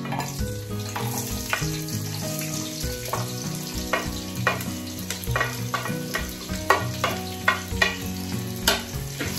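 Sliced onions sizzling in hot oil in a cooking pot as they are scraped in and stirred with a wooden spatula. Sharp knocks of the spatula against the plate and the pot come about twice a second, loudest in the second half.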